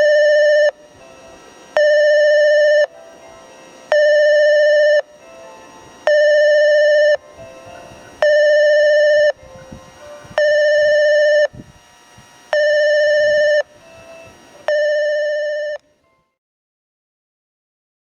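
Japanese railway station's train-approach warning buzzer: a steady buzzing tone, about a second on and a second off, sounded eight times before it cuts off near the end.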